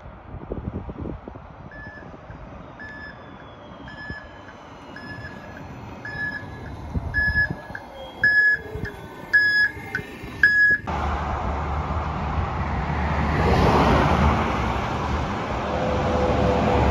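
Battery-electric city bus approaching and passing: a short beep about once a second that grows louder as the bus nears, over a faint electric whine that falls in pitch. About eleven seconds in, the sound cuts abruptly to louder, steady road noise from an approaching diesel city bus and traffic.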